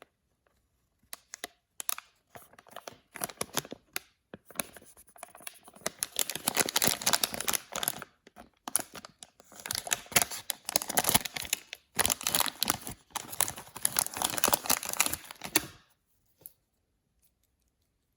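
Blind-bag packaging being torn open and crinkled by hand: a few light taps and rustles, then about ten seconds of close, loud tearing and crinkling in three spells, stopping abruptly near the end.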